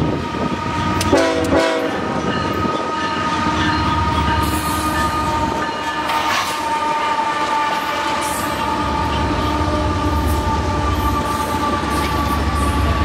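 Florida East Coast Railway freight train passing close, its lead diesel locomotive holding a long, steady horn blast, with a brief extra horn sound about a second in. The low rumble of the diesel engines and wheels grows as the locomotives go by.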